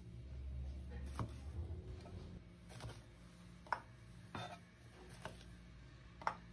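Cleaver chopping calamansi in half on a cutting board: about six sharp knocks, roughly one a second, over a low steady hum.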